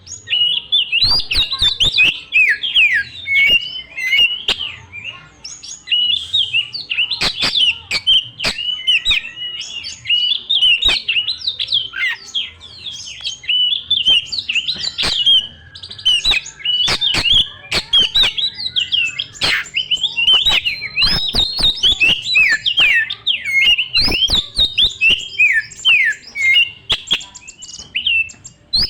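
Oriental magpie-robin (kacer) singing at full voice in a continuous, varied run of quick whistled notes, with many sharp clicks mixed in. This is the fast, full song used as a lure to trigger other magpie-robins into singing.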